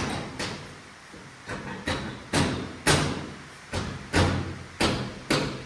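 A series of about ten sharp knocks, irregularly spaced and some coming in pairs, each ringing briefly as it dies away.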